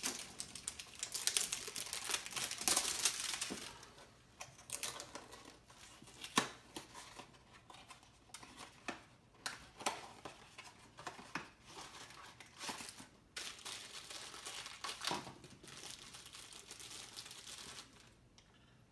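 A Funko Mystery Minis blind box being opened by hand: cardboard tearing and packaging crinkling, busiest in the first few seconds, then scattered rustles and small clicks as the figure is unwrapped.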